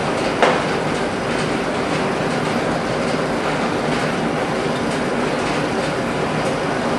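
Steady, loud rushing noise with a faint hum, from machinery running in the workshop, and one sharp knock about half a second in.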